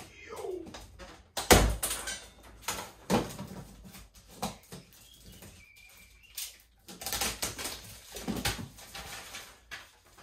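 Cardboard box being cut and opened: irregular knocks, scrapes and rustling of cardboard and packing tape as a utility knife cuts through, with a loud knock about a second and a half in.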